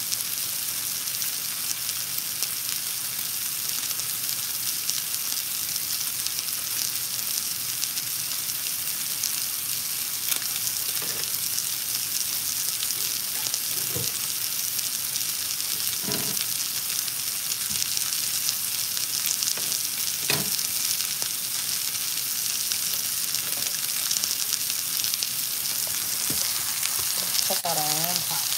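Lamb chops frying in a cast-iron skillet: a steady high sizzle, with a few light knocks scattered through it.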